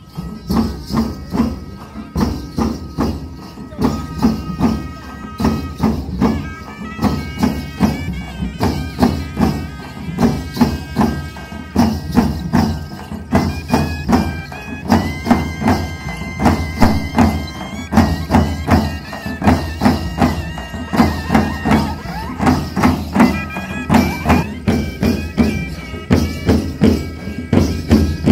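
Traditional folk dance music: drums and other percussion beating a steady, loud rhythm, with a high wind instrument playing a melody in held notes over it.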